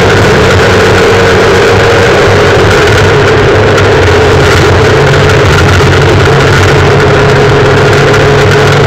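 Rally car engine running hard under load, heard from inside the cabin, very loud, with tyre and gravel noise from the dirt road underneath. The engine note holds fairly steady, stepping up slightly about five and a half seconds in.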